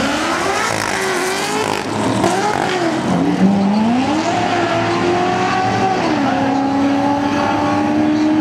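Drag-race launch: a 2007 Chevrolet Trailblazer SS's 6.0-litre V8 and a second car accelerating hard away from the line, engine pitch climbing and dropping back at each of several upshifts, then holding a steady high note as they run down the strip.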